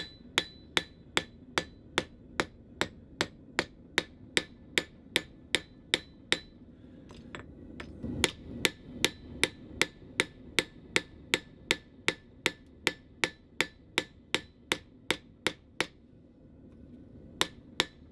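Rounding hammer's domed face striking a hot steel plate on an anvil in a steady rhythm, about three ringing blows a second, to hammer a dimpled texture into the surface. The blows pause briefly about six seconds in and again for over a second near the end, before two final strikes.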